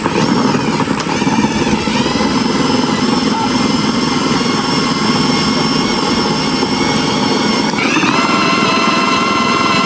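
A motor running steadily under load with a whining, many-toned sound; its pitch shifts about a second in and steps up near the end, then holds.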